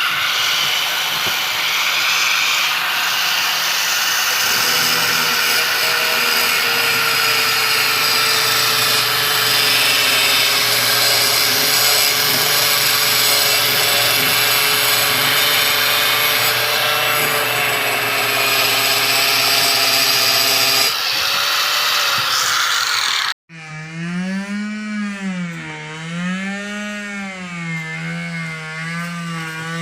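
An electric power tool running steadily for about twenty-three seconds, then cutting off abruptly. Guitar music with bending, wavering notes follows.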